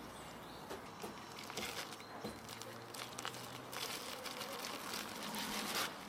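Homemade erişte noodles being tipped from a bowl into a steel pot of boiling water: irregular rustling and soft splashes, busiest in the second half.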